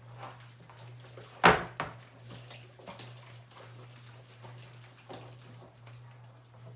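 Hands squishing and kneading wet, sticky homemade slime, with small squelches and clicks, and one loud knock about one and a half seconds in.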